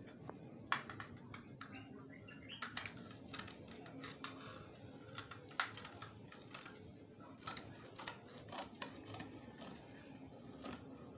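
Scissors snipping through embroidered lace along its border: a run of quiet, irregular short snips and clicks.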